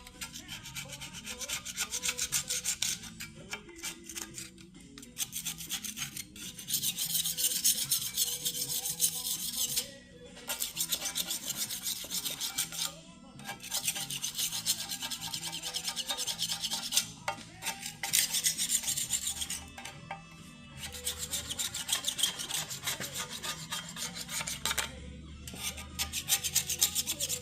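A hand tool scrubbing back and forth over a metal cover to clean it, in rapid rasping strokes. The strokes come in several bouts with short pauses between them.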